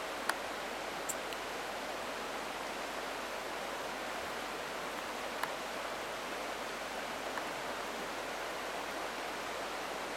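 Shallow Class II river rapids rushing steadily over rocks, with a few brief clicks.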